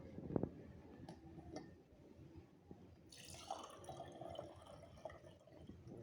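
Faint trickle and drip of liquid being strained through a kitchen sieve, heaviest around the middle, with one light knock about half a second in.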